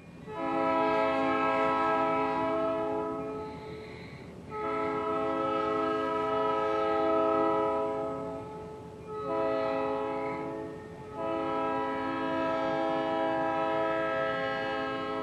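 Diesel locomotive air horn, a multi-note chord, sounding the grade-crossing signal: two long blasts, a short one, then a final long one.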